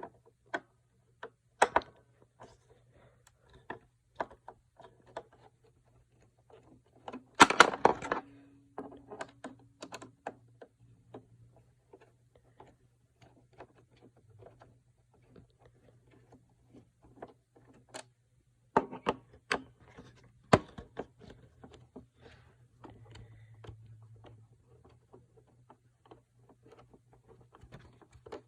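Scattered clicks and knocks of plastic parts being handled on an iRobot Roomba i-series robot vacuum, with one louder clatter about seven seconds in. A faint low hum runs underneath.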